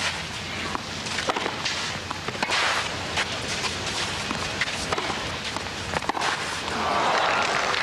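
Tennis rally: rackets striking the ball again and again, a short sharp pock roughly every second, over a low crowd murmur. Near the end the crowd noise swells as the point ends.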